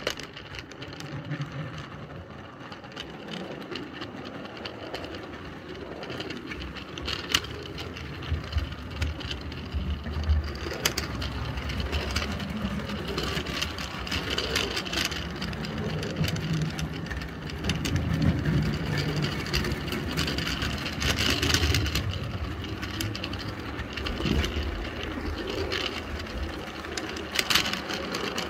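A 32mm-gauge model train of tipper wagons, pulled by an electric 0-6-0 locomotive, running on its track, heard close up from a camera riding on one of the wagons: a steady rolling rumble with sharp clicks now and then.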